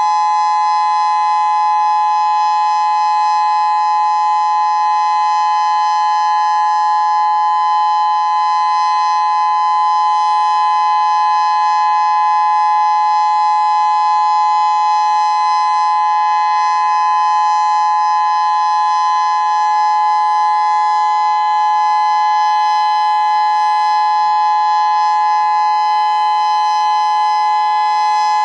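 Federal Signal Modulator 6024 electronic outdoor warning siren sounding a loud, steady tone made of two close notes, with no rise or fall in pitch, during a siren system test.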